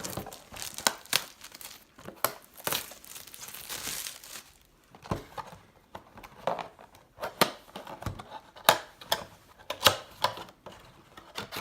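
Plastic wrapping being torn and crinkled off a trading-card box, in irregular rustles and sharp crackles.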